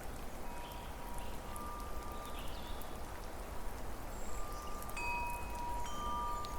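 Chimes ringing, several long clear tones coming in one after another, over a steady hiss like rain.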